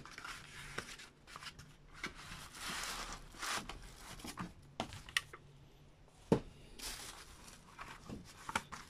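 Cardboard reel-to-reel tape boxes being handled: cardboard rustling and sliding against cardboard as a tape box is drawn out of its sleeve and opened. Small knocks throughout, with a sharper tap about six seconds in.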